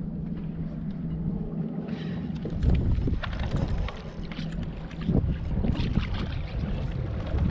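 Wind buffeting the microphone and water slapping a small boat's hull, turning gusty and irregular from about two seconds in.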